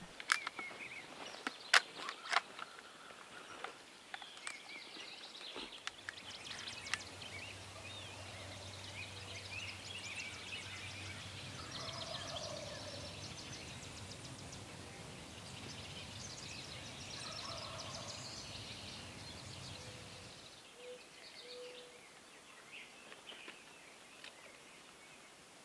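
Wild turkeys gobbling a few times over a chorus of chirping songbirds, with a few sharp clicks in the first few seconds and a low steady rumble through the middle.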